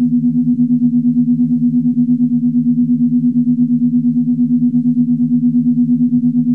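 Star Trek original series corridor ambience sound effect: a steady low electronic hum of two tones, throbbing in a quick, even pulse several times a second.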